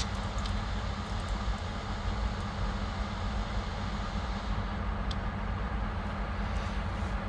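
Diesel locomotive idling: a steady low rumble with an even hiss of rain over it and a few faint ticks.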